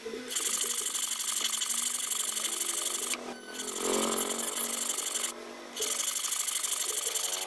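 Rapid, steady rasping of a hand tool rubbing on a part, broken by a short pause about three seconds in and another about five and a half seconds in.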